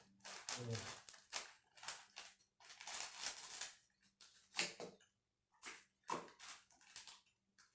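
Plastic snack packets crinkling and rustling in a run of irregular crackles as they are handled and opened.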